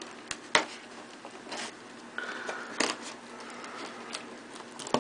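Craft knife cutting into a cardboard box: short scraping strokes of the blade and sharp clicks and taps against the cardboard, the loudest about half a second and about three seconds in.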